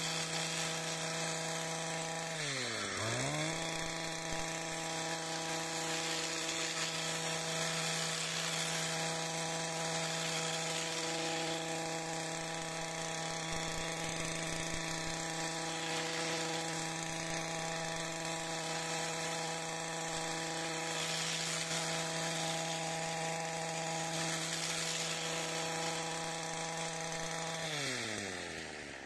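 Long-reach pole hedge trimmer running at a steady pitch while trimming the hedge top. It winds down and picks straight back up about three seconds in, then winds down to a stop at the very end.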